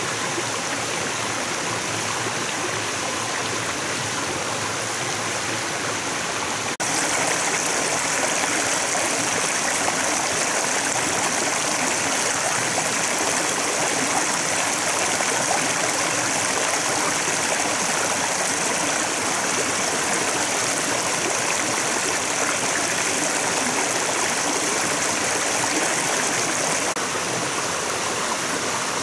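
Shallow rocky stream running over stones, a steady rush of water. It steps up a little in level about seven seconds in and eases slightly near the end.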